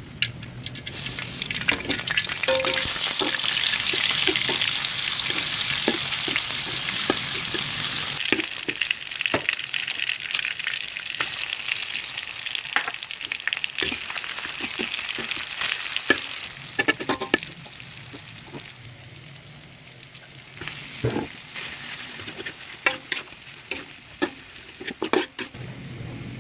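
Food sizzling in hot oil in a pan while a spatula stirs it, with repeated clicks and scrapes of the spatula against the pan. The sizzle is loudest for the first eight seconds or so, then dies down to a softer hiss.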